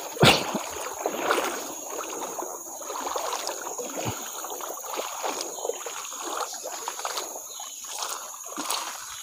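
Shallow river water running and splashing around people wading through it, with frequent small irregular splashes. One short loud thump just after the start.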